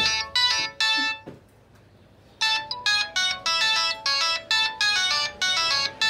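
Samsung SCH-A815 cell phone playing its default ringtone: a melody of short, bright, plucked-sounding notes that stops about a second in and starts over after a pause of about a second.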